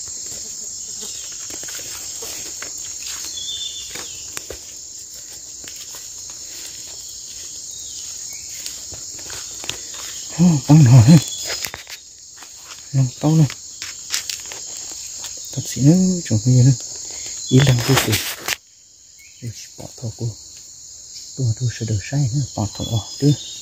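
Steady high-pitched insect chorus, with short bursts of a man's voice from about ten seconds in.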